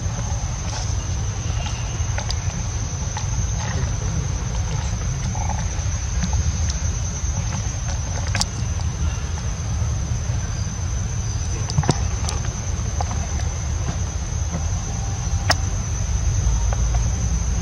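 Steady low rumble with a constant thin high-pitched whine over it, broken by three short sharp clicks.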